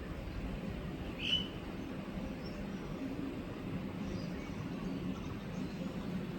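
A single short bird chirp about a second in, with a few fainter chirps later, over a steady low rumble.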